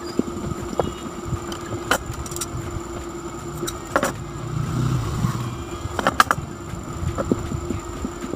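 Electric table fan motor running with a steady hum, with scattered sharp clicks and knocks over it.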